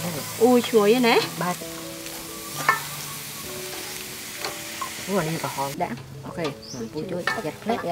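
Shrimp, chicken feet and fish balls sizzling on a barbecue grill, with metal tongs turning them. The sizzle cuts off about six seconds in, and brief pitched sounds come and go over it.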